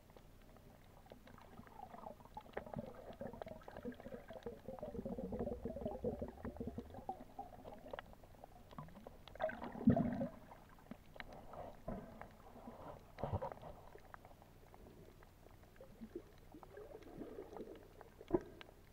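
Muffled water sounds picked up underwater: gurgling and bubbling movement of water, with a few sharp knocks. The loudest knock comes about ten seconds in, and smaller ones come later.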